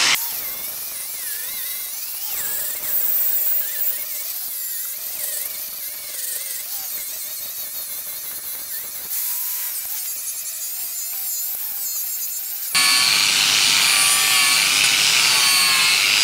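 4.5-inch angle grinder fitted with a buffing disc, running against steel to take the paint off, its pitch wavering as the load changes. About three-quarters of the way through it suddenly gets louder.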